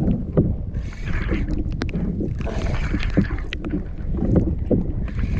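Wind rumbling against the microphone on a kayak at sea, with bursts of hiss every second or two and a few sharp clicks.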